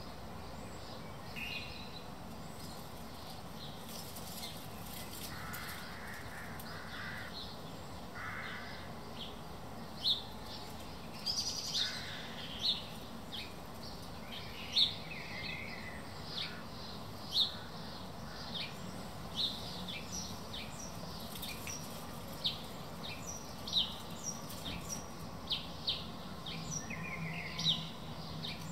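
Wild birds calling over a steady low background hum: three short hoarse calls between about five and nine seconds in, then frequent short high chirps from small songbirds through the rest.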